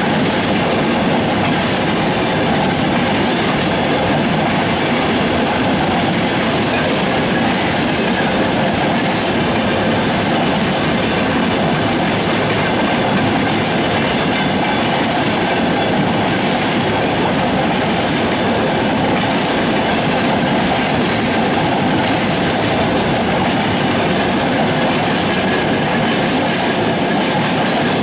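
Freight wagons rolling past close by, grain hoppers and then tank cars: a steady, loud rolling noise of steel wheels on the rails.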